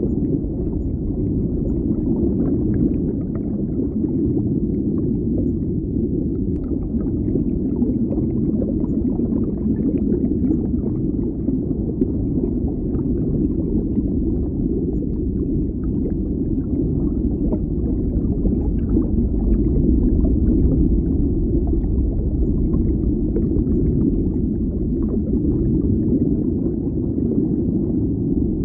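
Muffled underwater bubbling: a steady deep rumble of water with small bubble pops and gurgles scattered through it.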